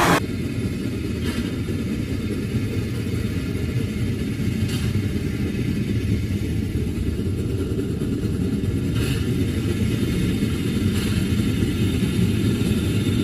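Muffled, steady low rumble of a train running, with a few faint clicks spread through it.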